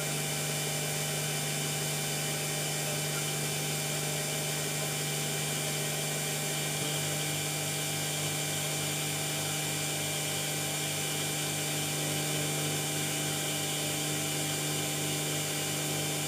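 Sieg X2 CNC mini mill running, its spindle whining steadily as an end mill cuts an aluminium workpiece. A second, lower tone joins about seven seconds in.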